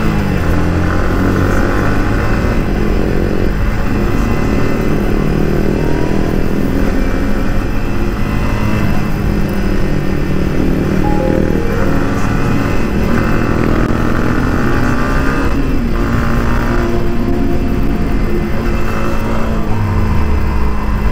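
Yamaha MT-15's 155 cc single-cylinder engine under way in traffic, its pitch rising again and again as it accelerates and shifts up, heard from the rider's helmet.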